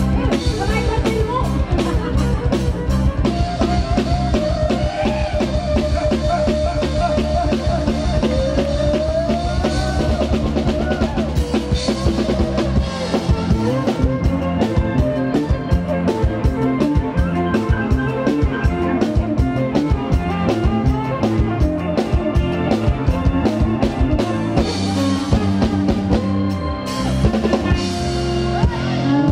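Live electric kantrum band music, loud over a PA, driven by a fast drum-kit beat with bass and a melody line; the bass pattern changes and thins about halfway through.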